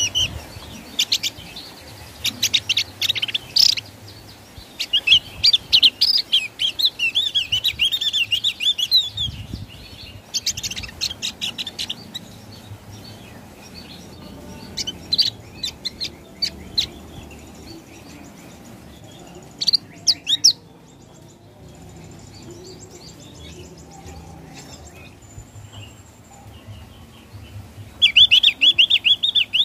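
Javan grey-throated white-eye (opior jawa) singing its loud 'ngeplong' song: phrases of rapid, high chirping notes, each lasting a second to a few seconds, repeated about six times with short pauses between.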